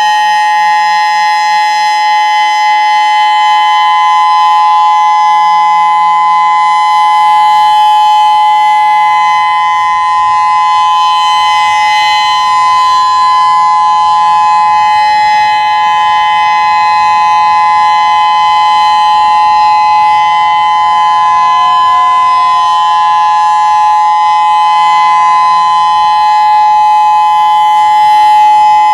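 Whelen WPS-3016 rotating electronic outdoor warning siren sounding its steady test alert tone: two steady pitches held together without a break, loud.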